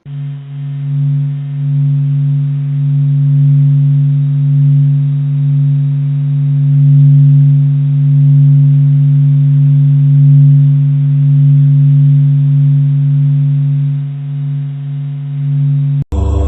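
Sonified "sound of the Sun" clip, presented as NASA's recording of a solar storm: a loud, steady low hum with a stack of fainter higher tones, slowly swelling and easing in loudness. It cuts off abruptly near the end.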